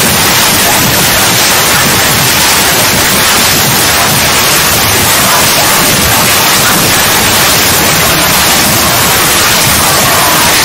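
Loud, steady static hiss like white noise, holding even throughout with no tones or breaks.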